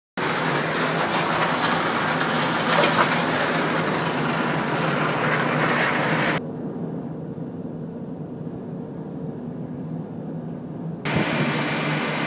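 Steady low hum of a tuna fishing boat's engines and deck machinery, with a hiss of wind and sea over it. The hiss drops away abruptly about six seconds in and comes back near the end.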